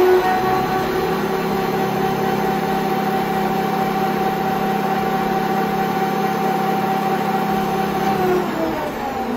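Bernardo Profi 550 WQV metal lathe running unloaded at about 2000 rpm, its 750 W motor and spindle giving a steady whine of several tones. Near the end the pitch slides down as the lathe is switched off and spins down.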